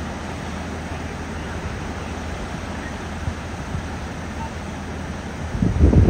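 River rapids rushing steadily over a ledge of whitewater. Near the end a gust of wind buffets the microphone with a brief loud rumble.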